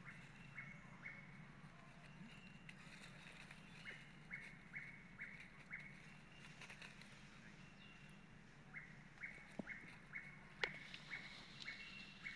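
Faint animal calls: short, even, high notes repeated about two to three times a second in three runs, over a low steady hum. A single sharp click about ten and a half seconds in.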